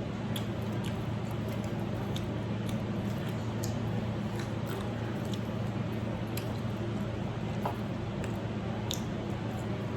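Someone eating chicken wings close to the microphone: soft wet chewing with scattered small mouth clicks and smacks, over a steady low background hum.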